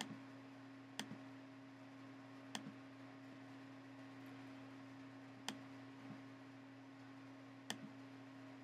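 Computer mouse clicks: about five sharp clicks spread a second or more apart, most followed closely by a softer one, over a faint low steady hum.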